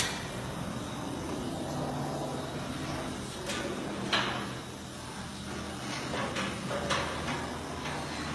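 Hose-fed gas flame torch burning with a steady rushing noise as its flame is passed over wooden nesting planks to burn off fungus. Several sharp knocks and scrapes come from the wooden planks, the loudest about four seconds in.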